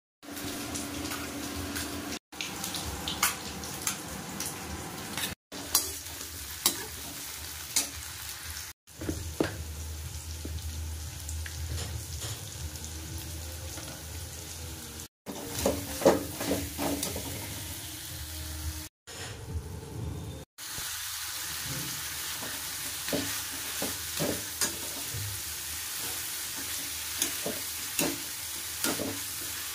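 Tomato-onion masala and potatoes sizzling in oil in a kadhai, with a metal slotted spoon clinking and scraping against the pan as it stirs. The sound drops out briefly several times.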